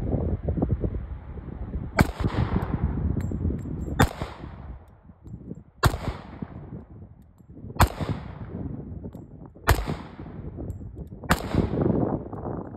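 Remington Rand M1911A1 pistol firing .45 ACP, six single shots spaced roughly two seconds apart. Each shot cracks sharply and dies away in a short echo. A low rumbling noise runs between the shots.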